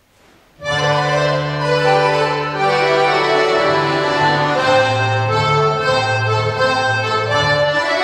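Accordion orchestra begins playing about half a second in: full held chords over a bass line that steps between notes.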